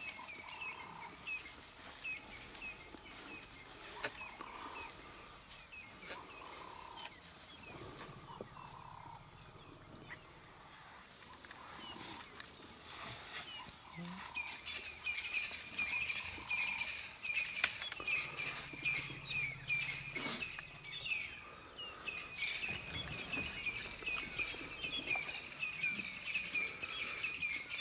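Small birds chirping over and over in the bush, short quick notes that come thinly at first and grow denser and louder from about halfway through.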